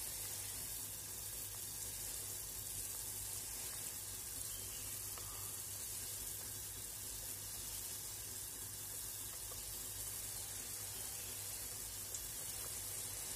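Pork and dried mushroom soup at a rolling boil in a stainless steel stockpot over a high gas flame: steady, even bubbling.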